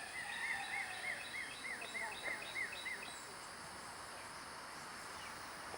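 A bird singing a run of about ten quick, identical arched notes, roughly three a second, that stops about three seconds in. A steady high insect hum runs underneath.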